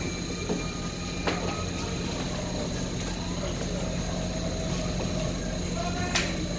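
Steady hum of warehouse machinery with a faint high whine, broken by a sharp knock about a second in and a louder one near the end as a cardboard produce box is set down on a stack.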